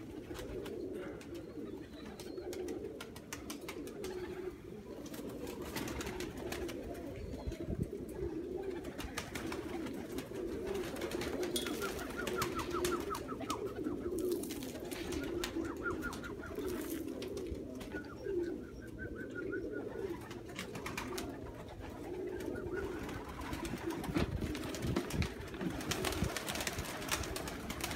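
A flock of domestic pigeons cooing continuously, with scattered wing flaps and clatter as birds land and move about.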